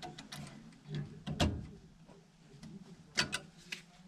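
Scattered sharp clicks and knocks of hand work on a gas furnace: one loud knock about a second and a half in and two quick clicks a little after three seconds, over a low steady hum.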